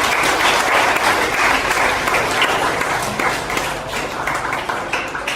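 A crowd applauding: dense clapping, loudest in the first few seconds, then thinning out toward the end.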